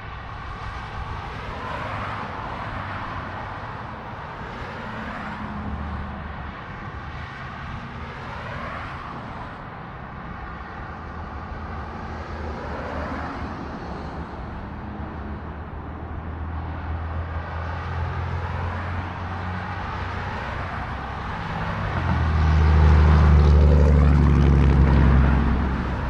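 Vehicles passing by one after another, each a rising-and-falling whoosh every few seconds. Near the end a heavy vehicle goes by with a loud, low engine rumble for about three seconds.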